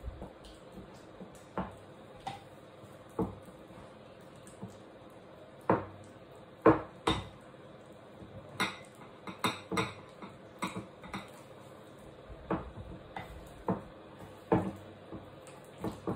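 Wooden spoon knocking and scraping against a ceramic bowl while mashing and stirring a thick mash of pumpkin, peanut butter and banana. The knocks come irregularly, the loudest about seven seconds in, with a busier run shortly after.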